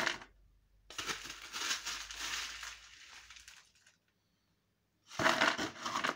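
Sieved pumice grit rattling as it is scooped from a plastic colander and tipped into a pot to make the drainage layer. There is a sharp knock right at the start, then two gritty spells of a few seconds each, the second beginning near the end.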